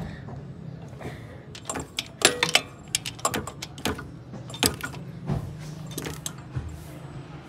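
Irregular sharp metallic clinks and taps as tools and parts are handled in a car's engine bay while a water pump is being fitted, over a steady low hum.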